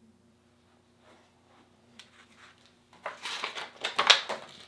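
Page of a hardcover picture book being turned: a near-silent pause, then a papery rustle with a few sharp flicks starting about three seconds in.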